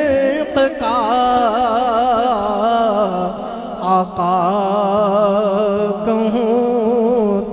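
Male voice singing an Urdu naat through a loud PA system: long, ornamented held notes with heavy vibrato, breaking briefly about four seconds in, over a steady low drone.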